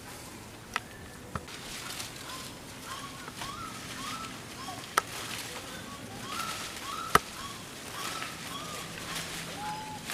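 Short chirping animal calls, many in a row, each rising and falling in pitch. A few sharp clicks or knocks come in between, the loudest about seven seconds in.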